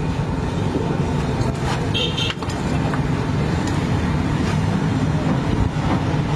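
Steady low engine rumble of a running motor vehicle, with a short high-pitched tone about two seconds in.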